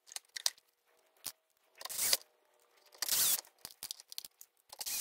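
Faint workshop handling sounds as a battery is screwed back into a speaker's case: scattered light clicks, with two short scraping bursts about two and three seconds in.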